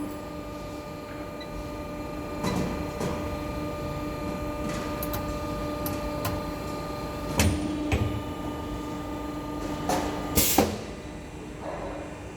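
CNC corner crimping machine for aluminium window profiles running under test, with a steady hum and several clicks and knocks as its crimping knives move. Near the end comes a short loud burst of noise, and the hum stops.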